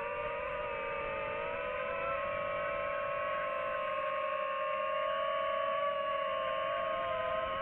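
FPV quadcopter's brushless motors and propellers whining at a nearly steady pitch, several close tones from the separate motors sounding together.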